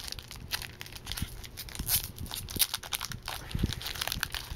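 Foil wrapper of a Topps trading card pack crinkling and tearing as it is ripped open by hand, a dense run of irregular crackles.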